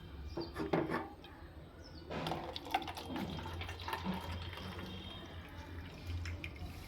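Lukewarm salt water being poured into a neti pot: a few light knocks of the vessels in the first second, then the running pour from about two seconds in.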